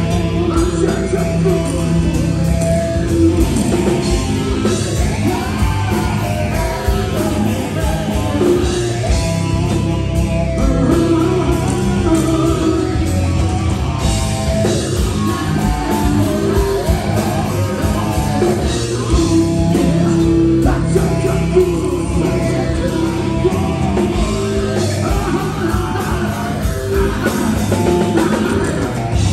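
Live rock band playing loud and steady: electric guitars, bass and a drum kit, with a singer's voice over them.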